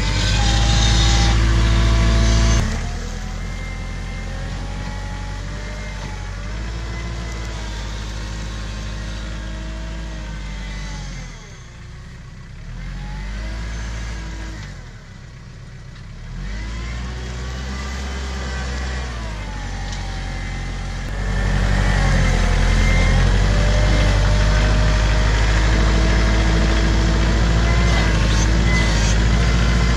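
Kubota compact cab tractor's diesel engine working the front loader, with revs rising and falling as it pushes and backs up. It is louder in the first couple of seconds and again from about two-thirds of the way through, and dips briefly twice in the middle.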